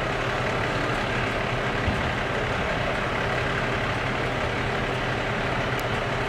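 Diesel engine of a parked emergency vehicle idling steadily.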